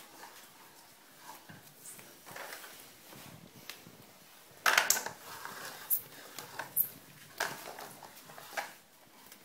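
Plastic toy truck knocking and clattering on a tiled floor as a baby handles it: scattered sharp clicks and taps, with a louder burst about five seconds in.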